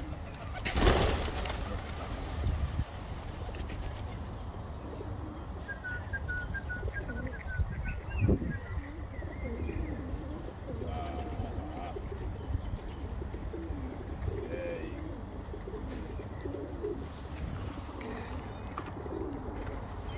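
Feral pigeons cooing: low, rising-and-falling calls repeating throughout. A brief loud rush of noise comes about a second in, and a short run of quick high chirps around six seconds.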